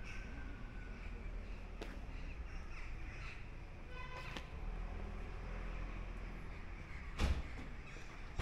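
A crow cawing, with a short call about halfway through, over a low steady rumble. A louder sudden sound comes near the end.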